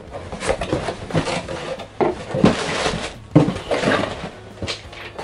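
Cardboard shipping box being opened by hand: packing tape cut and pulled away and the flaps pushed open, an irregular run of scrapes, rustles and light knocks.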